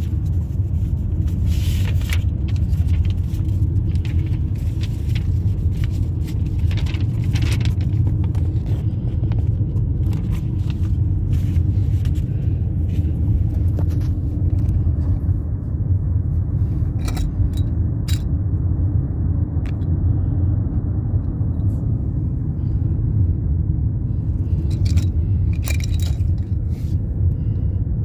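Steady low road and engine rumble inside a moving car's cabin, with a few light clicks and rattles scattered through.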